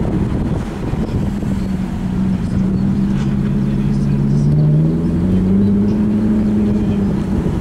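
Alfa Romeo 8C Spider's V8 engine running at low speed in slow traffic, its pitch rising gently about halfway through and then holding steady.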